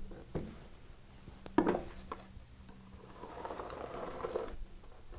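Pencil scratching along a metal combination square as a line is drawn on an OSB panel, with one sharp knock about a second and a half in as the square shifts on the board.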